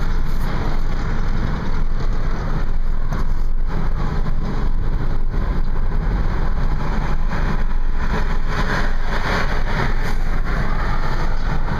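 Steady road and engine noise of a car being driven, an even rumble with a hiss above it.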